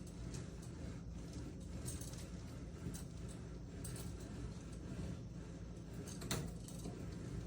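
Faint metallic clicks and rattles of a retractable aluminium ceiling clothes-drying rack being handled and pushed back up, a few scattered clicks with the sharpest about six seconds in, over a steady low hum.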